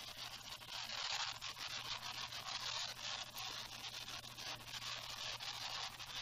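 Elephone P9000 smartphone playing back its own recording: a hissing static noise that swells and dips, with a steady low hum under it and no voice audible. The interference in the phone's microphone has drowned out the spoken commentary that was recorded.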